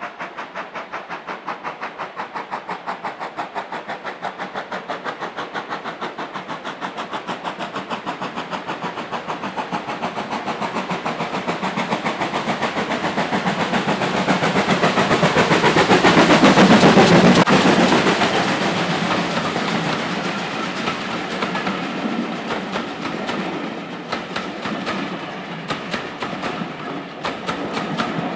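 GWR Hall class 4-6-0 steam locomotive 4930 Hagley Hall hauling a passenger train, its two-cylinder exhaust beating a steady, even rhythm. The beats grow louder as it approaches and are loudest as it passes, about two-thirds of the way in. The coaches then roll by, their wheels clicking over the rails.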